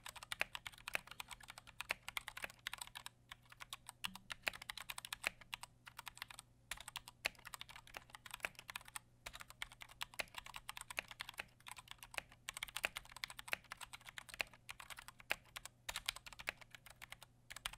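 Typing on a Koodo Arcadia mechanical keyboard with Gateron Brown tactile switches: a fast, continuous run of keystroke clicks with brief pauses every few seconds.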